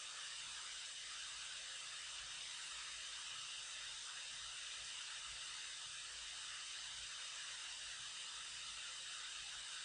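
Steady, faint hiss of background noise from the recording, with no other sound.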